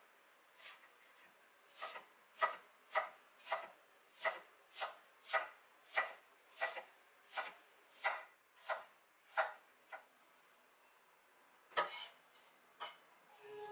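Chef's knife dicing an onion on an end-grain wooden cutting board: a steady run of crisp knife strikes, about two a second. After a short pause come a few sharper knocks near the end.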